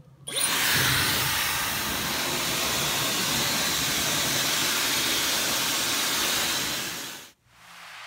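Dyson Supersonic hair dryer, its motor in the handle, switched on and blowing a steady loud rush of air while drying wet hair. The sound cuts off abruptly near the end and a fainter rush of air follows.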